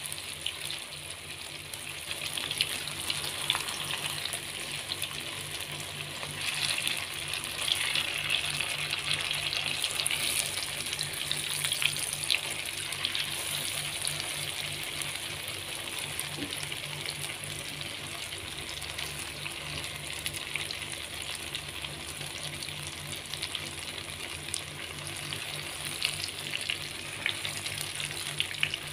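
Crumbled tofu and egg sizzling steadily in hot oil in a nonstick wok, with a fine crackle throughout and a spatula turning the mixture now and then.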